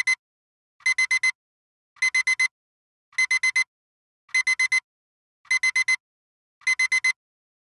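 Digital alarm-clock-style timer alarm beeping in quick bursts of four identical high beeps, one burst about every second, signalling that the countdown has run out.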